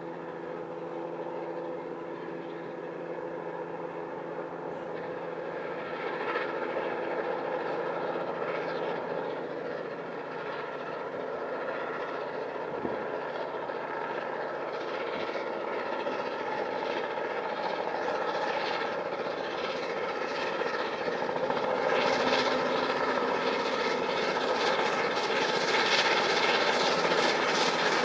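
Steam locomotive A4 Pacific 'Bittern' working a train at speed as it approaches, its exhaust beat and running noise growing steadily louder, with a steady hum underneath.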